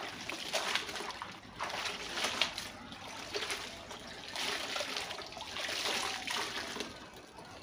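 Soapy water splashing and trickling back into a plastic washtub as a wet garment is lifted, squeezed and wrung out by hand, in several swells.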